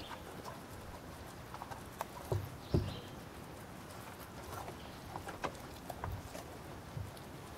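Carolina Dog chewing raw meat, with irregular wet clicks and smacks of jaws and teeth, a couple of them louder a few seconds in.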